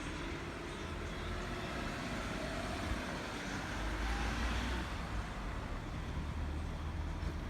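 Steady motor-vehicle noise with a deep low rumble.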